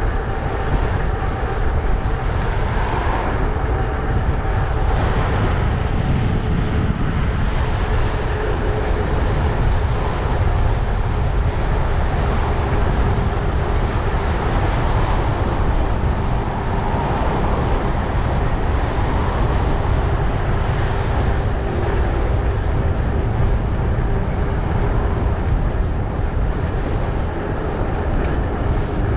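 Wind buffeting the microphone while riding a bicycle: a steady, loud low rush of noise that stays even throughout, with a faint steady hum underneath.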